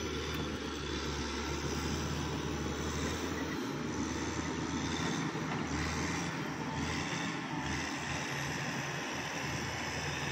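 Cat 120 motor grader's diesel engine running steadily at a constant pitch as the machine drives along the dirt slope.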